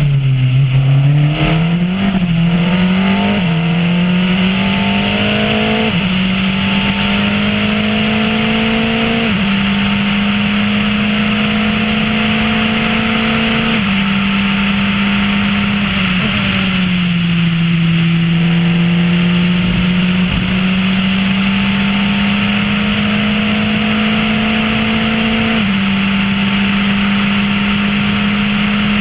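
Formula Renault race car's four-cylinder engine at racing speed. Its pitch drops and climbs sharply through quick gear changes at the start, then climbs slowly through long pulls in each gear, with a deeper dip a little past the middle, over a steady rush of wind noise.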